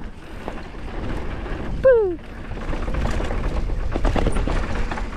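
Mountain bike rolling fast down a dirt trail, heard from a helmet-mounted action camera: a rumble of tyres and wind with the clatter of the chain and frame over rough ground, growing louder toward the end. About two seconds in, the rider gives one short falling 'whoo'.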